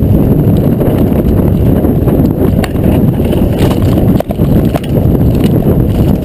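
Loud wind buffeting on an action camera's microphone as a mountain bike rides fast down a dirt track, with scattered rattles and knocks from the bike over the rough ground.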